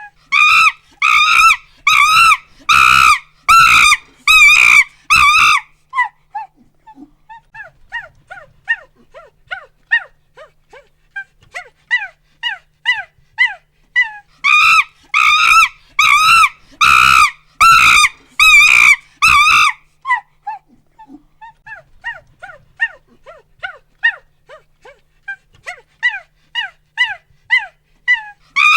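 Monkey hooting and screaming. Series of short hoots build into trains of loud, wavering screams twice, about a quarter of the way apart, and quieter hoots rise again between them.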